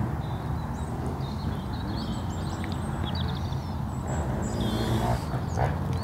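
Outdoor ambience: a steady low rumble with small birds chirping and warbling faintly in the background, one warbling phrase coming in about halfway through.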